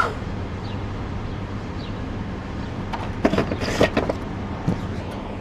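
Street traffic: a car driving slowly past with a steady low engine rumble. A short run of sharp knocks or clatters comes a little over three seconds in.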